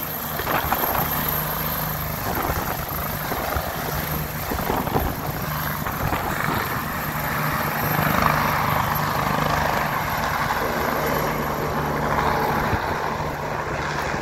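Turbine helicopter lifting off and climbing away: steady rotor and engine noise with a high turbine whine that fades near the end.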